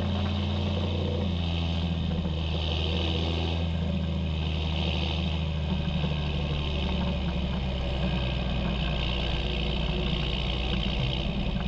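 John Deere 6820 tractor's six-cylinder diesel engine running steadily, a low even drone with a hiss above it.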